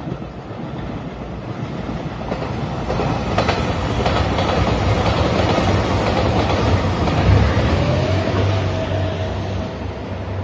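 JR Shikoku 2700 series diesel express train passing: a low diesel engine drone under the clatter of wheels over the rails, building to its loudest around the middle and easing off slightly near the end.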